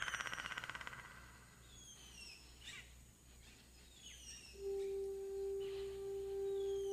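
Film jungle soundscape: a rapid insect-like buzz fading out in the first second, then high falling bird whistles repeating every couple of seconds. About two-thirds of the way in, a single steady held note with faint overtones enters from the film score and becomes the loudest sound.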